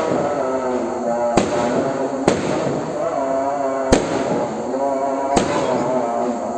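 Firecrackers going off in single sharp bangs, four of them at irregular intervals, over a continuous sung or chanted voice.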